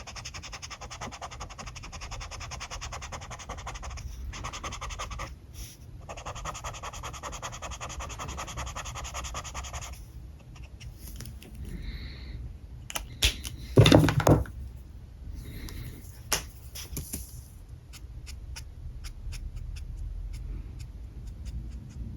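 Alcohol marker nib rubbing on paper in quick back-and-forth coloring strokes, pausing twice, then lighter scattered strokes. A single loud, brief bump about two-thirds of the way in.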